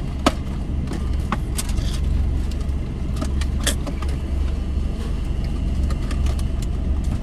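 Car engine idling, a steady low hum heard from inside the cabin, with a few scattered light clicks and rustles.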